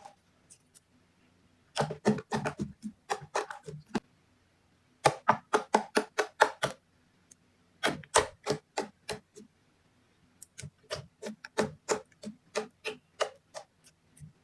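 Slime being squished and pressed by hand, giving sharp popping clicks as air pockets burst. The clicks come in four runs of several a second, with short pauses between them.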